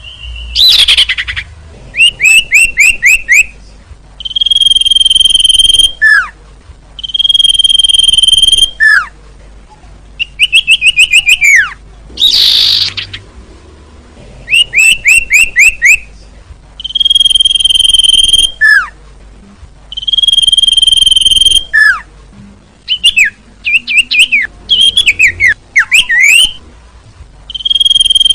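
Common iora (sirtu) singing loudly. Long, steady whistled notes of about a second and a half alternate with quick runs of short, down-slurred chips, about six or seven a second, repeating over and over with brief pauses.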